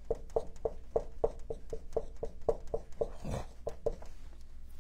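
Dry-erase marker writing on a whiteboard: a quick, regular run of short strokes, about four a second.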